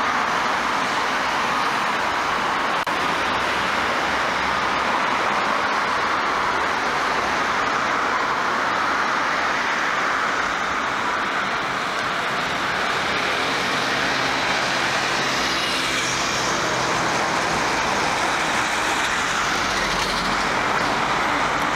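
Steady road traffic noise from cars and a bus passing at a city intersection, an even rushing hiss with no single event standing out.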